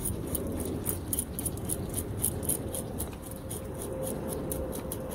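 Hand-held metal fish scaler scraping scales off a fish's skin in quick, even strokes, about four or five a second, over a steady low rumble.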